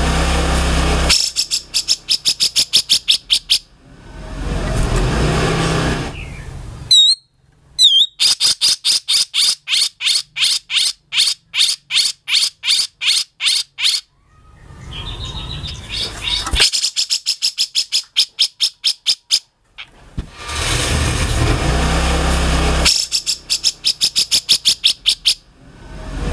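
Cucak jenggot (grey-cheeked bulbul) singing a rough, harsh song. Rasping, scratchy chatter alternates with fast runs of sharp repeated notes, about three or four a second, and a couple of quick whistled glides come near the middle.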